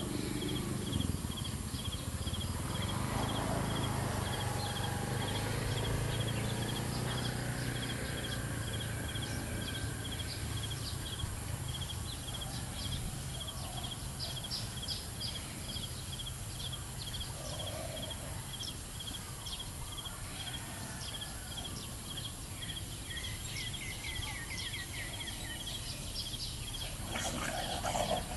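An insect chirping in a steady, even pulse, about two chirps a second, over a low rumble of outdoor noise that fades after the first half. A brief louder sound comes near the end.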